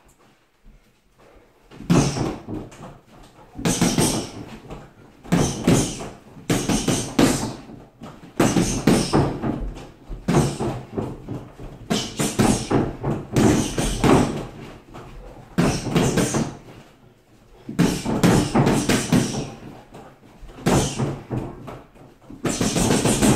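Boxing gloves punching a Gallant freestanding punchbag with a water-filled base. Flurries of quick thuds in combinations start about two seconds in, with short pauses between them.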